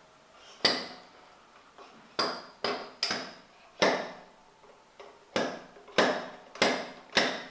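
Fork seal driver striking a new fork seal on a Yamaha YZ250's KYB SSS fork, about nine sharp knocks, each with a short ring, as the seal is driven down into the fork leg. The taps are irregular at first, then fall roughly every half second from about five seconds in.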